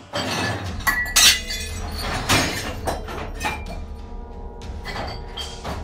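Repeated crashes and clatters of objects being knocked about, with glass clinking and breaking, the loudest crash about a second in. Background music with held notes runs underneath.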